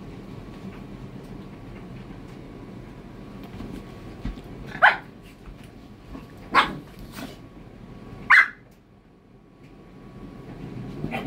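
Dog barking in single short, sharp barks, four of them about two seconds apart, the last near the end, as two dogs play together.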